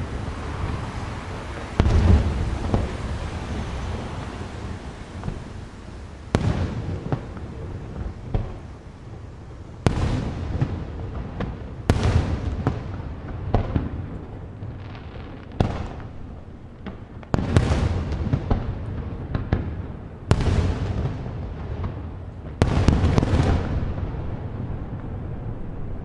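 Aerial firework shells bursting one after another, about nine or ten loud bangs a few seconds apart, each trailing off in a long rumble with some crackle.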